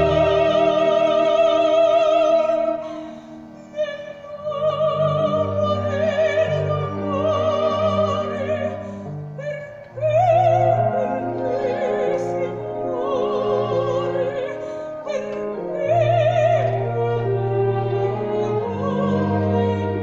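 A woman singing opera in a high voice with wide vibrato over instrumental accompaniment, in long held phrases with short breaks about three seconds in and just before ten seconds.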